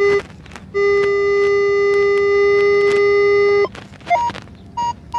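Metal detector's audio target tones: a short low beep, then a long steady low tone for about three seconds, then a few short, higher-pitched beeps near the end. It is a solid, repeatable signal reading 42 to 44 on the display, which the detectorist says is usually just a quarter.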